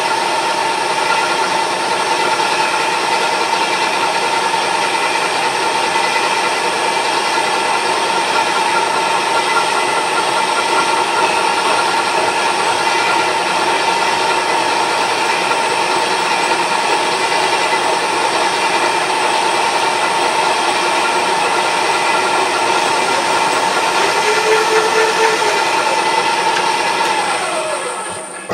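Milling machine running with an involute gear cutter cutting the teeth of a brazed-up lathe gear: a steady high whine over the hiss and chatter of the cut. Near the end the whine falls in pitch and fades as the spindle runs down.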